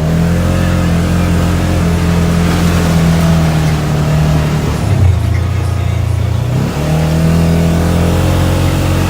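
Side-by-side UTV engine running steadily under way; its note drops about five seconds in and picks back up nearly two seconds later as it speeds up again.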